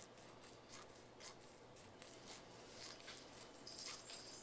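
A pink nail file rasping across a white-faced capuchin monkey's fingernails in faint, short strokes, about two a second, with one louder, hissier stroke near the end.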